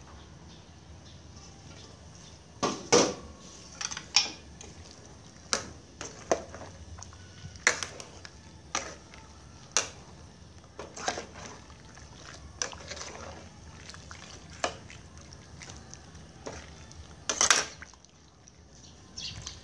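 Metal ladle stirring vegetable soup in an aluminium pot: liquid sloshing, with about a dozen sharp clinks of the ladle against the pot, roughly one a second.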